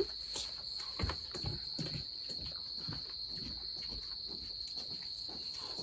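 Crickets chirring steadily in one constant high band, with a few light clicks and knocks scattered through, as of tableware at a meal.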